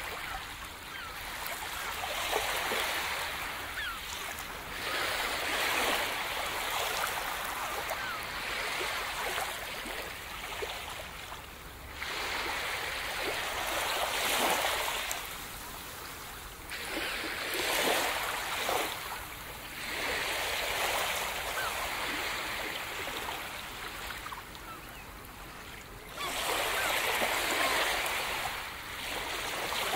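Small waves washing up a sandy beach, each surge swelling and fading over a few seconds.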